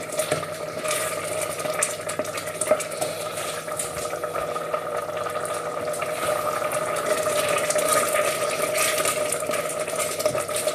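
Pan of risotto and stock simmering on the stove, a steady bubbling hiss with small scattered ticks, over a constant hum.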